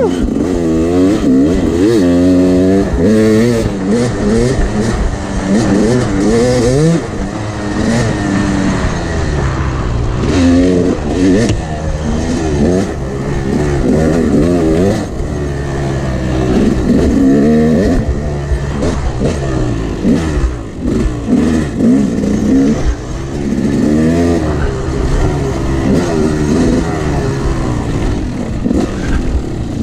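Yamaha YZ250X two-stroke single-cylinder dirt bike engine being ridden hard, revving up and easing off again and again, its pitch climbing with each burst of throttle.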